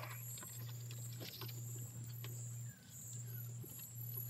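Night insects trilling steadily at a high pitch over a low steady hum, with faint scattered rustles and ticks.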